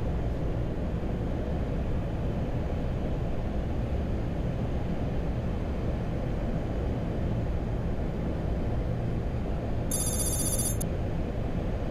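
Steady cockpit noise of a Boeing 737-800 on final approach: an even rumble of airflow and engines. About ten seconds in, a brief high electronic trill rings for under a second.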